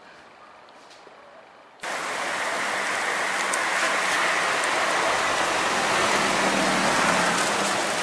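Loud, steady rushing wind and road noise from a moving car, with a faint steady engine hum, starting abruptly about two seconds in.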